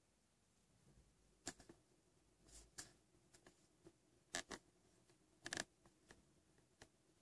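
Faint, scattered taps of a fingertip on a smartphone touchscreen: about eight short clicks, some in quick pairs, over a quiet background.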